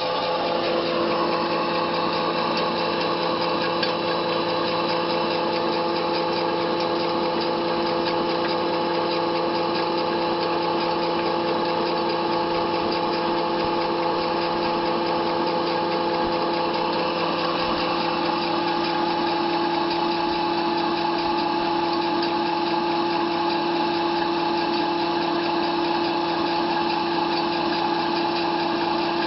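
Small electric feed pellet mill running steadily while it presses feed mash into pellets: an even mechanical whine with several held tones that does not change.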